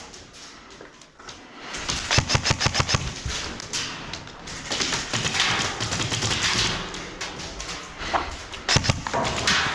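Airsoft gun firing a rapid automatic burst about two seconds in, with a shorter burst near the end.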